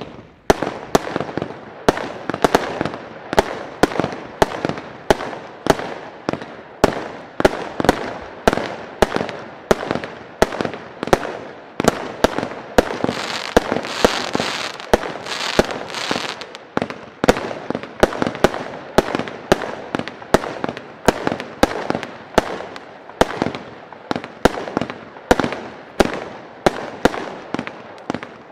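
Weco Restart 20 mm firework cake firing shot after shot at about two a second, each sharp report followed by the crackle and fizz of its bursting stars. For a few seconds in the middle the hiss between shots grows louder.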